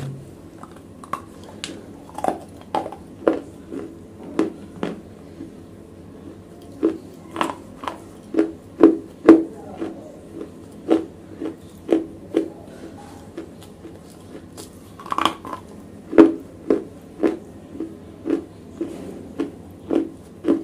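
Close-miked crunching of wet black slate being bitten and chewed: a run of sharp, irregular crunches, one or two a second, with a short lull a few seconds in.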